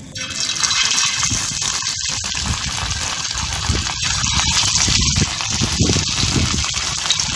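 Hot oil sizzling as marinated anchovies are laid into a pan for frying: a loud, steady hiss that starts sharply the moment the fish hit the oil.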